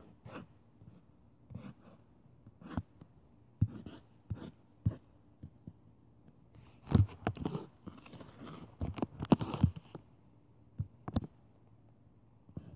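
Irregular taps and scratching of drawing strokes on a touchscreen, with a busier run of rubbing about seven to ten seconds in.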